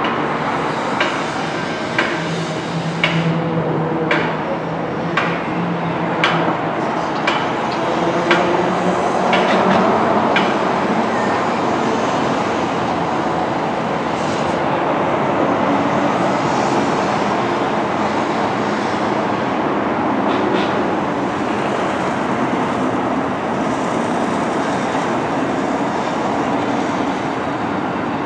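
A train running on rails, its wheels clicking over the rail joints about once a second, a little faster as it goes, then a steady rumble from about ten seconds in.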